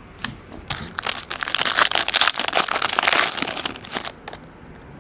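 Trading-card pack wrapper being torn open and crinkled by hand. The crackling rustle builds about a second in, is loudest through the middle and dies away near the end.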